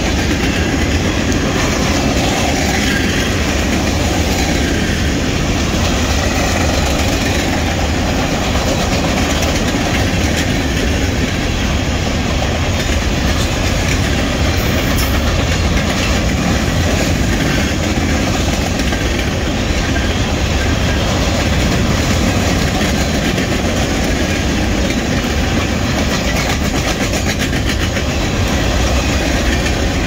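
Grain train's covered hopper cars rolling past at close range: a steady loud rolling noise of steel wheels on rail, with fine repeated wheel clicks, unchanging throughout.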